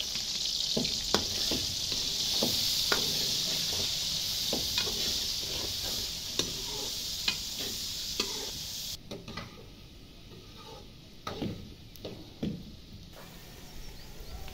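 Sliced onions sizzling loudly in hot ghee in a steel pot as they are fried, with a metal ladle clicking and scraping against the pot while they are stirred. About nine seconds in, the sizzle cuts off abruptly, and a few quieter knocks follow.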